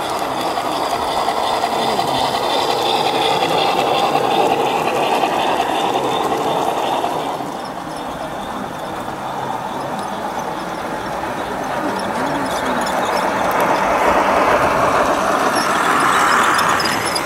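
G-scale garden-railway model trains running on the track: a steady rolling rumble of wheels on rail with motor drive, growing louder towards the end as a train comes close.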